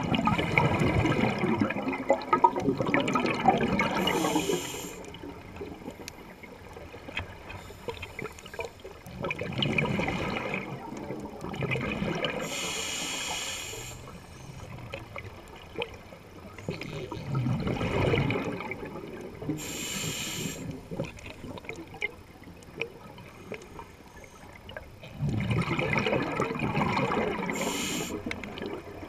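Scuba diver breathing through a regulator underwater: a few seconds of bubbling exhaust from each exhale, then a short hiss of the regulator on the inhale, about four breath cycles.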